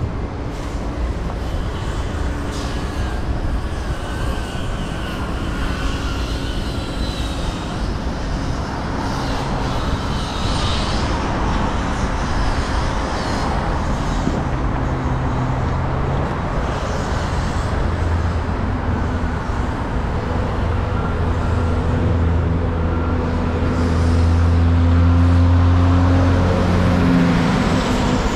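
Road traffic noise: steady vehicle sound with a low engine hum. The hum grows stronger about two-thirds of the way through and is loudest a little later, like a large vehicle close by.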